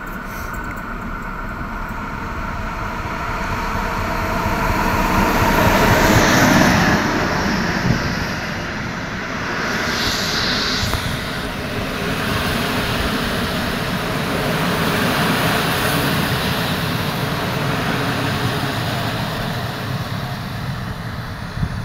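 Locomotive-hauled passenger train passing close along a station platform. Its rumble builds to its loudest about six seconds in, then the coaches' wheels run on steadily over the rails.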